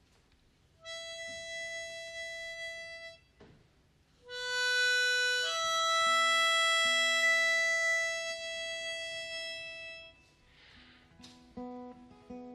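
Harmonica played from a neck rack: one long held note, a short pause, then a louder phrase of long held notes. Near the end, acoustic guitar notes come in.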